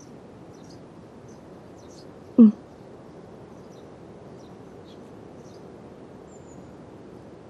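Faint outdoor ambience with scattered small high bird chirps. About two and a half seconds in comes one short, loud call that falls in pitch.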